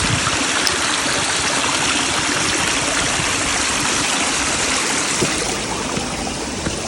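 Small mountain stream running steadily, water rushing and trickling over rocks at a shelter's water source.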